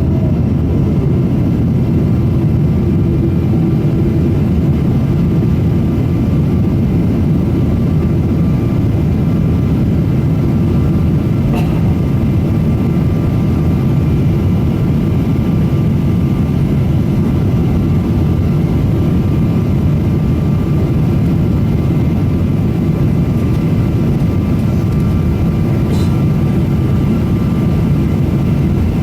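Boeing 777-200 cabin noise in flight: a steady, loud roar of the engines and rushing air, with faint steady whining tones above it. Two small clicks come through, one about halfway through and one near the end.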